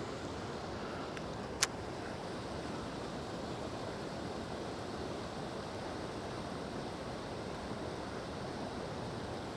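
Steady rushing noise of river water and wind on the microphone, with one sharp click about a second and a half in.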